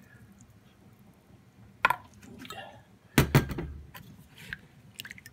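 A spatula knocking against a mixing bowl of walleye skins soaking in tanning solution: two sharp knocks, the louder about three seconds in, then a few lighter clicks, with faint sloshing of the liquid.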